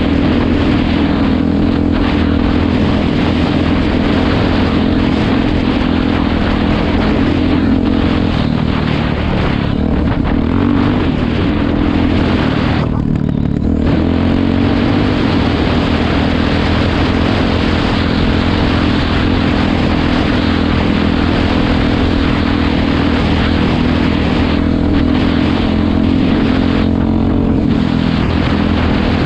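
Dirt bike engine running steadily under throttle at cruising speed, loud and close. It eases off briefly about 13 seconds in, then pulls again.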